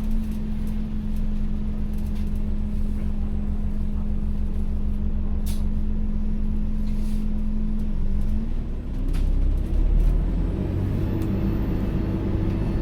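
Cabin sound of an ADL Enviro400H City hybrid double-decker bus: a steady hum tone over a low rumble. About eight seconds in the tone stops and a rising whine and heavier rumble take over as the drive changes.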